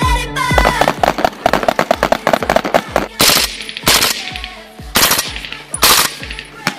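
Rifle gunfire: a quick run of cracks, then four loud single shots about a second apart, over background music at the start.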